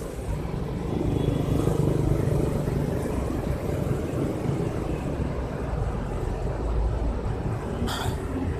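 A low, steady engine rumble, strongest in the first few seconds, with a short sharp sound near the end.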